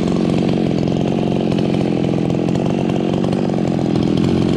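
Ported Husqvarna 51 two-stroke chainsaw running steadily and loudly.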